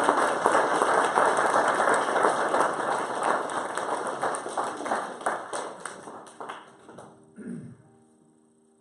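Congregation applauding, a dense patter of many hands clapping that thins out and dies away about seven seconds in. A few soft held musical notes begin near the end.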